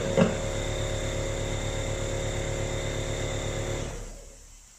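Small vacuum cleaner running steadily while vacuuming dust out of a van's air filter housing, with a couple of knocks near the start. It is switched off and winds down near the end.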